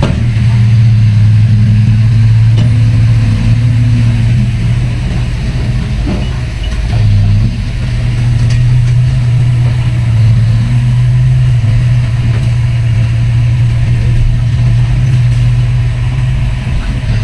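Heavy diesel engine of earthmoving machinery running with a steady low drone, easing off briefly about seven seconds in.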